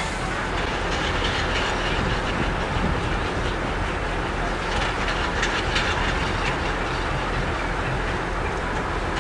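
Steam traction engine on the move, a steady mechanical rumble with light irregular clanking.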